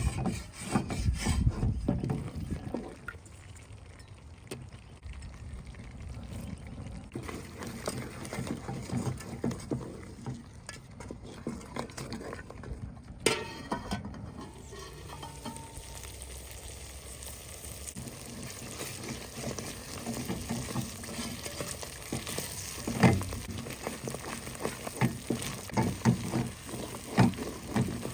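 Spoon stirring and scraping in a pot of sizzling ghee, with a steady crackle under it. The scraping is louder near the start and again in the last few seconds, and a brief hiss comes about halfway through.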